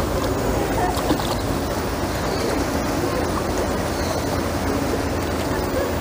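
Steady rumbling background noise with no distinct events, heaviest in the low end, with faint distant voices now and then.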